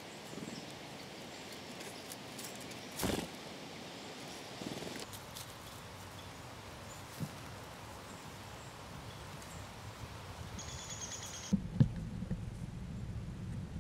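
Outdoor natural ambience with faint rustles and scattered small clicks and taps, the loudest about three seconds in. Near the end there is a short high trill, and then the background abruptly changes to a louder low rumble with a couple of sharp knocks.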